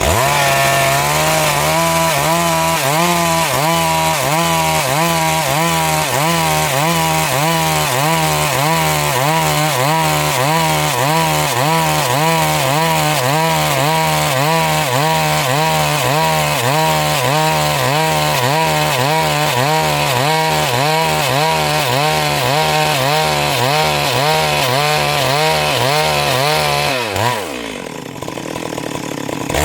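Stihl MS 382 two-stroke chainsaw revving up to full throttle and cutting lengthwise through a Siris log, its pitch wavering up and down in a steady rhythm under load. Near the end it winds down, then revs again.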